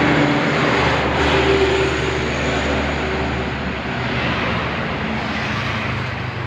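Heavy road vehicle going by close at hand: a steady engine drone under loud tyre and road noise, loudest at first and easing off slightly, with no horn.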